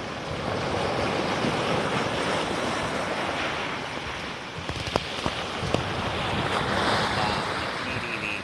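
Sea waves washing onto the shore, swelling and easing, with wind buffeting the microphone. A couple of sharp clicks come a little past the middle.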